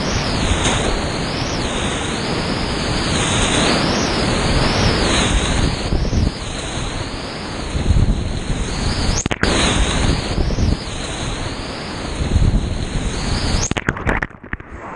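Whitewater rapid at high flow crashing around a kayak, a loud, dense rush of water with waves splashing over the microphone, and a brief knock about nine seconds in. Near the end the sound turns muffled and dull as the microphone goes under the water.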